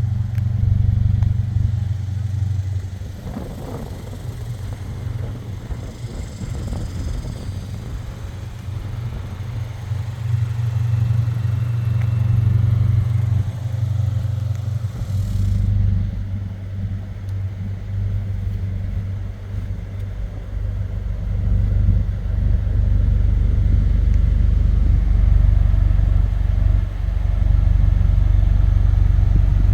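Subaru BRZ's 2.4-litre flat-four running through an aftermarket exhaust, a steady low drone. Its note drops deeper about halfway through and it gets louder in the last third.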